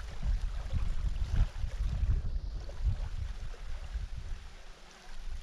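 Wind buffeting the microphone, an uneven low rumble in gusts that eases briefly near the end.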